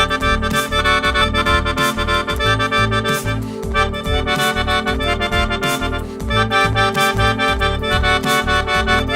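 Instrumental passage of a live song with no singing: sustained chords that change every second or two over a steady, pulsing low bass.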